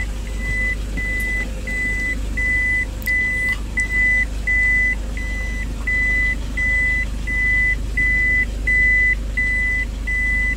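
Reversing warning beeper inside a Toyota Innova's cabin, a short high beep repeating steadily about three times every two seconds while the car is in reverse, over the low steady hum of its 2KD diesel engine.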